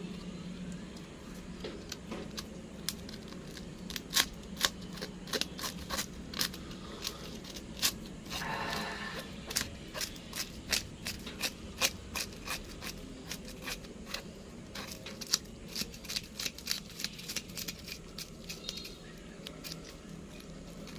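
Irregular sharp clicks and snaps, some loud, over a steady low hum, with a brief voice about eight seconds in.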